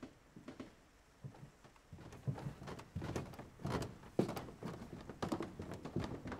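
Irregular knocks and thumps of objects being handled in a small room, sparse at first and busier and louder from about two seconds in.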